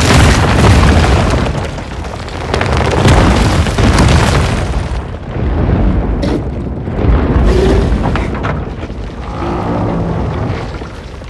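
Cinematic sound-design rumbles and booms, deep and heavy, swelling and fading about four times, with a faint pitched tone near the end.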